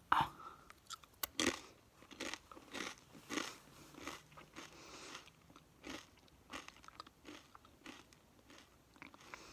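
A person chewing crunchy food close to the microphone: a steady run of crisp crunches, about two to three a second.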